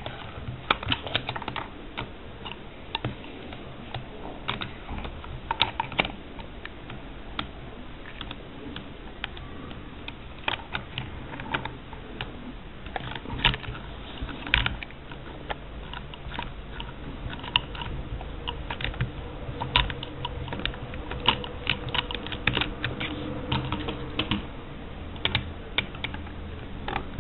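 Irregular small clicks and taps of a hand screwdriver, screws and small chassis parts being handled while a radio-controlled car's rear body brace is unscrewed and taken off. They play over a low steady hum.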